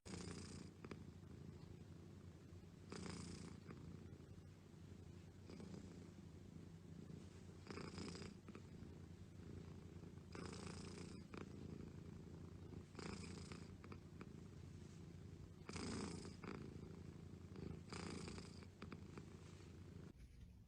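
Domestic cat purring steadily and low, with a breathy swell about every two and a half seconds.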